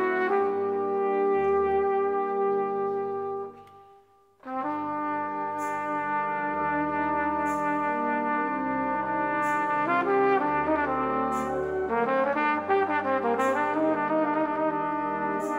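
Wind band of brass and woodwinds playing slow, sustained chords with a solo trumpet. The music dies away to a brief near-silent pause about four seconds in, then the band comes back in, with a light cymbal stroke about every two seconds.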